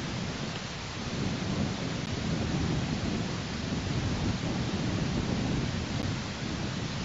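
Wind buffeting an exposed nest-camera microphone high in a tree: a steady low, gusty rumble with a fainter hiss above it.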